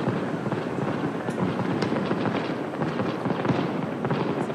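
Fireworks display: a continuous run of crackling pops and bangs.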